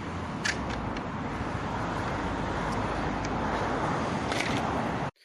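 Steady outdoor background noise like road traffic, with a few light clicks; it cuts off abruptly near the end.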